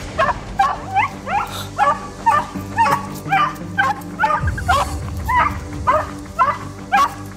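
Small curly-coated terrier barking and yipping in a rapid run, about two to three sharp calls a second, worked up and lunging on the leash toward another dog.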